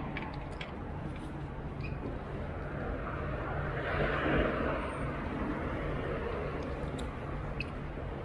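Steady low engine rumble of passing motor traffic, swelling louder about four seconds in and easing off, with a few faint clicks.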